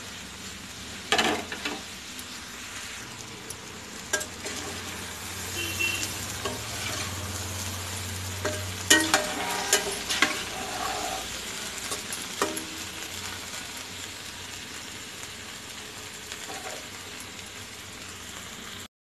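Potato, cauliflower and green bean dry fry sizzling in oil in a kadai while a steel spatula stirs it, with several scrapes and knocks of the spatula against the pan, the busiest around the middle.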